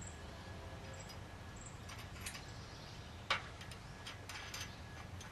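Small metal clicks and clinks of U-bolts, nuts and washers being handled and hand-threaded onto the bolts, with one sharper click a little past three seconds in.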